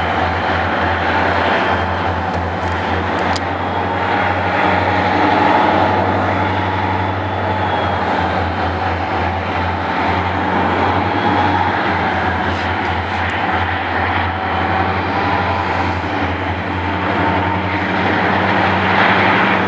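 A pair of EMD SD40-2 diesel switch locomotives running their 16-cylinder two-stroke engines under power as they pull a cut of cars. The sound is a steady, loud engine drone with a higher whine held over it.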